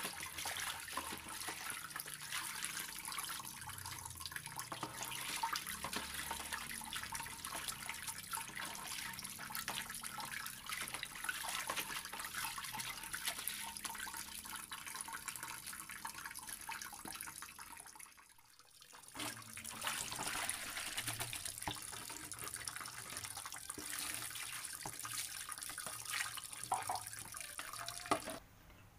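Tap water pouring into a tub of sliced potatoes, with splashing as gloved hands stir and scoop the slices with a plastic basket. The water sound dips briefly about two-thirds of the way in and stops abruptly just before the end.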